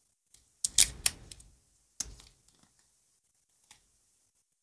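Thin plastic protective film crinkling and crackling as it is peeled off an AirPods charging case: two short bouts of clicks and crackle, the louder one about a second in and another about a second later, then a faint tick.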